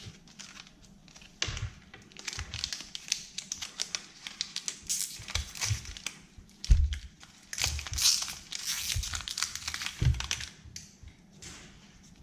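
Candy wrapper crinkling and tearing as it is unwrapped by hand, in a long stretch of crackly rustling, with a couple of dull bumps against the table.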